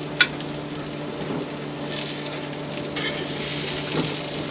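Leftover hash browns sizzling quietly in a frying pan, with a single sharp click just after the start.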